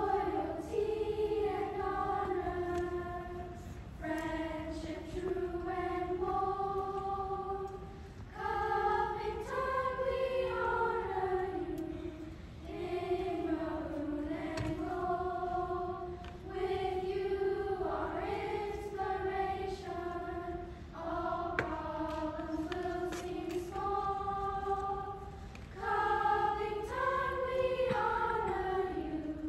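Children's choir singing a melody in unison, in phrases of a few seconds with short breaks between them.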